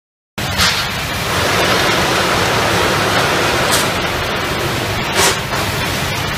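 An automatic form-fill-seal bagging machine for 25 kg bags running on the factory floor: steady loud mechanical noise with a low rumble, scattered clicks, and a few short bursts of hiss. The sound cuts in abruptly about a third of a second in.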